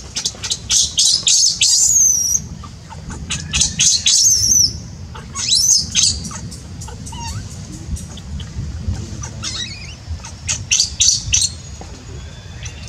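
Infant long-tailed macaque crying in repeated bursts of rapid, very high-pitched squeaks and squeals that glide up and down, loudest in the first two seconds.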